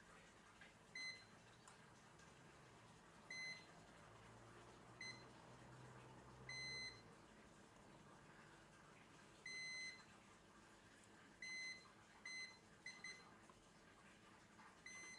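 Multimeter continuity beeper giving about nine short, high beeps at irregular intervals, two of them held for about half a second, as the probes touch capacitor pads. Each beep signals continuity: a short, or near-zero resistance, across the component being probed.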